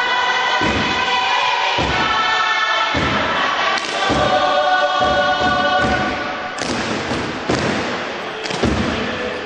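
A group of voices singing a chant in harmony, with low thumps roughly once a second, beaten by hand on a wooden box, accompanying a Pacific Island dance.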